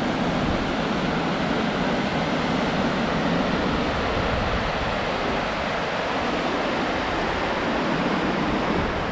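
Steady rush of the Hraunfossar waterfalls pouring out of the lava rock into the river below, heard as an even roar of falling and flowing water.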